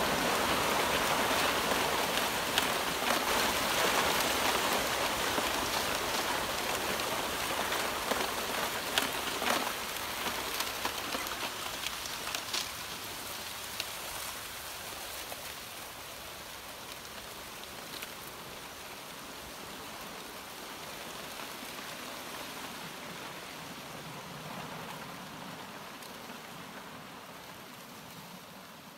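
A steady hiss of rushing water with a few faint ticks, gradually getting quieter and fading out near the end.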